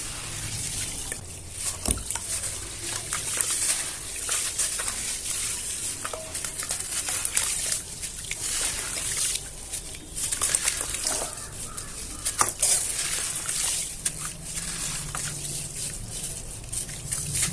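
Chunks of black cement and sand crumbling in the hands: a dense crackle of small crunches with sharp snaps. Wet sloshing and squishing of the soaked cement paste.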